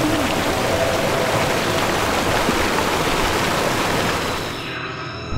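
Steady rush of pouring water, which thins and drops away about four and a half seconds in.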